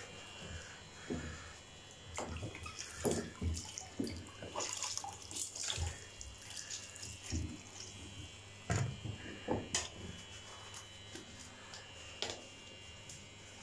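Water splashing and sloshing in irregular bursts as a cat is washed by hand in a plastic basin of shallow water in a bathtub, over a faint steady hum.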